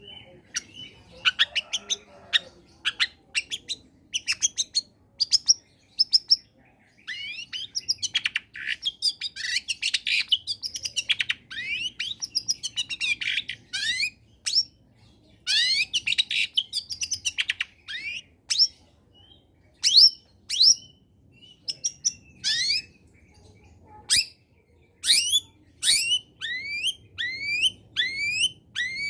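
Long-tailed shrike (cendet) singing a fast, varied song of chirps, trills and pitch sweeps with short pauses, ending in a regular run of rising whistled notes, a little under two a second.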